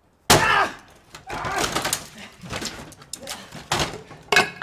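Heavy blows of a tool against a wooden door, the wood cracking and splintering. There is a loud blow just after the start and another near the end, with smaller knocks and cracks between them.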